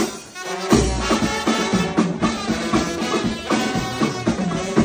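Music with drums and a steady beat; it dips briefly just after the start and comes back with a deep bass hit.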